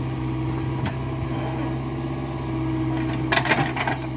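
CAT excavator's diesel engine running steadily under hydraulic load while the bucket digs, with a cluster of knocks and clanks from the bucket and arm about three seconds in and a single knock about a second in.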